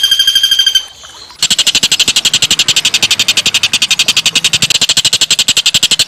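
A fast-pulsed whistled note fades out, and after a short pause, about a second and a half in, a small songbird starts a long, harsh, very fast buzzy rattle.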